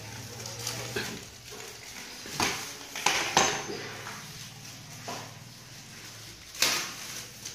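A few sharp clinks and knocks of fan parts being handled, about five in all, the loudest near the end, over a steady low hum.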